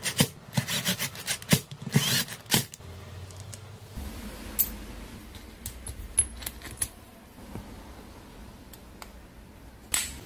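Screwdriver working the screws of an angle grinder's bearing plate: a quick run of metallic clicks and scrapes in the first few seconds, then quieter handling of the metal plate with a few light clicks, and a short rub near the end.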